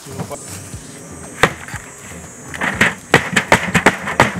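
Wooden beehive boxes being handled and set down: a single knock about a second and a half in, then a quick run of clattering knocks of wood on wood in the second half.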